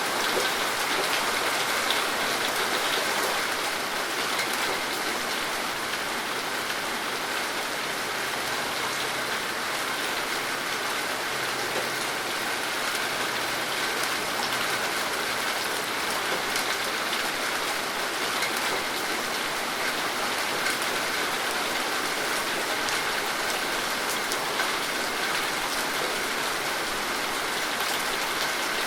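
Steady rain falling, a continuous hiss dotted with many individual drops ticking on a hard surface.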